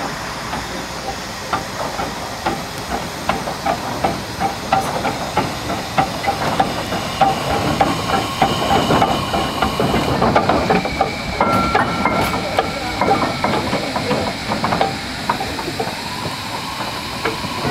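Achenseebahn rack steam locomotive No. 3 'Georg' running past, hissing steam from its cylinder drain cocks over rhythmic exhaust beats and mechanical clanking.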